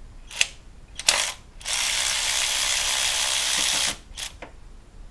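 Ratchet undoing the bolt on an A/C compressor refrigerant line: a couple of short bursts of ratcheting, then a steady ratcheting run of about two seconds that stops abruptly, and one more short burst near the end.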